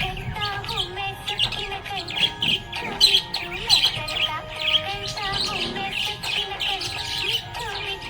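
Budgerigars chirping and warbling in quick, continuous chatter, over background music with held notes.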